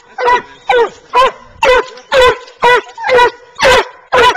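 Coonhounds (Treeing Walkers and a black and tan) barking treed, the steady bark that means game is up the tree: a regular run of short barks, about two a second, each dropping in pitch.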